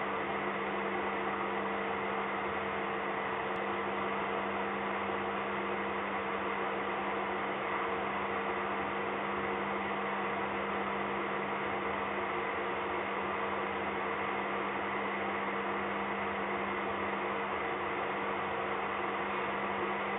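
Steady hum with several held tones over a constant hiss, unchanging throughout.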